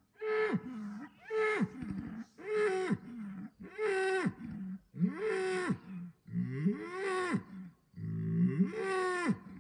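A series of about seven loud animal calls, roughly one a second, each rising and then falling in pitch.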